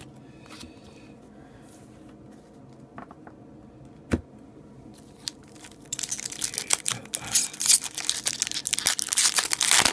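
Foil trading card pack wrapper crinkling and tearing as it is opened by hand, a dense crackle that starts about six seconds in. Before that, only a few light taps, with one sharp knock about four seconds in.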